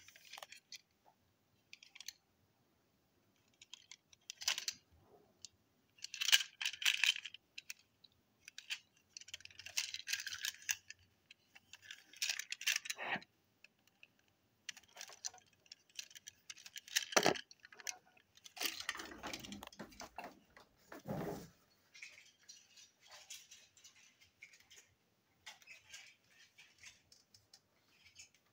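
Small plastic toy train trucks handled in the hands: irregular clicks, rattles and light scrapes of plastic bodies and wheels, with a few louder knocks a little past the middle.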